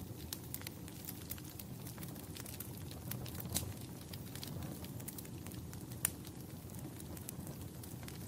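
Wood fire in a fireplace crackling over a steady low rumble, with frequent small snaps and two louder pops, about three and a half seconds in and again about six seconds in.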